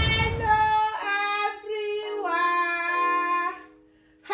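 A voice singing long, held notes, stopping briefly just before the end.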